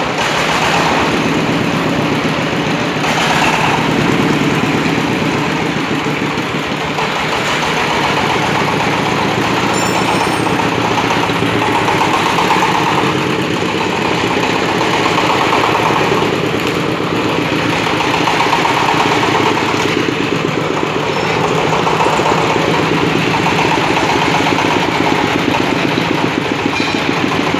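Engine of a self-propelled well-drilling rig running steadily, with a note that swells and fades about every three seconds.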